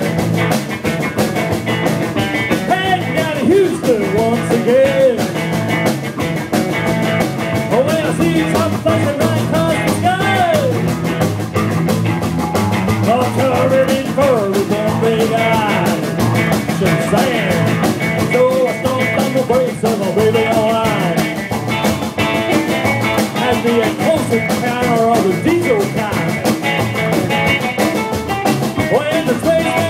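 Live rockabilly band playing: electric guitar, upright double bass and drum kit, with a steady beat throughout.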